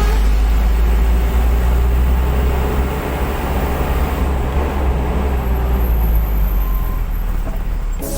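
Heavy diesel machinery running with a steady, deep rumble, typical of the excavator working at the truck.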